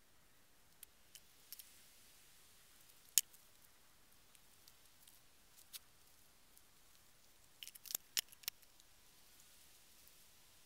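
A few faint, sharp clicks and ticks over a low hiss: a single louder click about three seconds in and a quick run of four or five clicks near eight seconds in.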